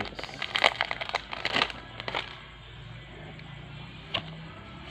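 Foil booster-pack wrapper crinkling and tearing open for about two seconds, then quieter with two light clicks of cards being handled near the end.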